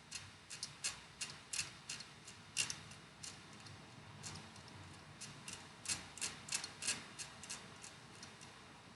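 Faint, irregular scratching ticks, a few a second, of a hand tool scraping the coating off a Samsung Galaxy A40 charging board beside the microphone to expose the copper pads.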